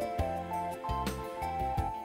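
Instrumental background music: a gentle stepping melody over a steady, regular bass pulse.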